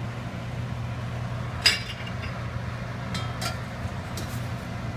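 Cooking utensils clinking against stainless steel pots: one sharp clink about a second and a half in, then a few lighter clinks, over a steady low hum.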